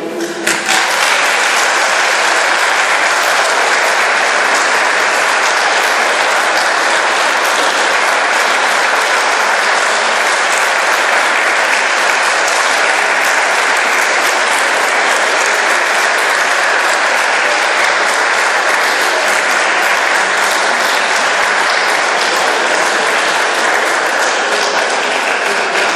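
Audience applauding, steady clapping that starts just as the choir's last sung chord ends and thins out near the end.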